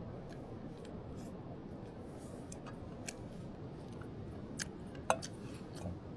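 A few light clicks of chopsticks against a pot and bowl during a meal, the loudest about five seconds in, over the steady rush of a river.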